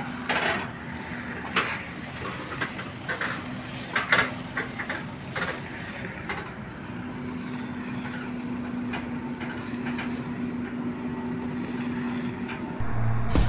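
Tractor pulling a trailer loaded with round bales, its engine running steadily as it passes and drives off, while the trailer clanks and rattles over the rough yard in the first few seconds. Near the end, louder music cuts in abruptly.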